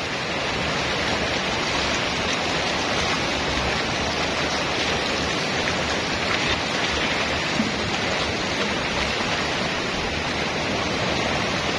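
Steady rushing of shallow water, an even hiss with no breaks.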